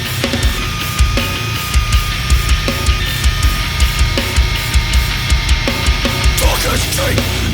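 Heavy, aggressive metal-style music with no vocals: a pounding low-end beat and a droning high tone, with a new wavering layer coming in near the end.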